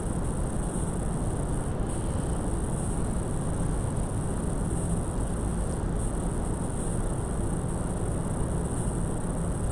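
Steady low rumble with a faint hiss: background room noise picked up by the microphone, with no distinct event.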